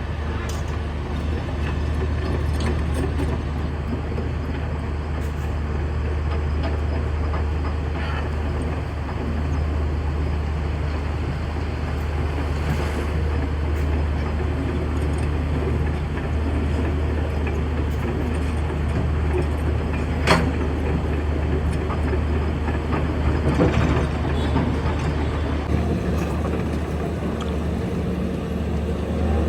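Large hydraulic excavator's diesel engine running steadily under work, a deep drone, with a single sharp clank about two-thirds of the way through.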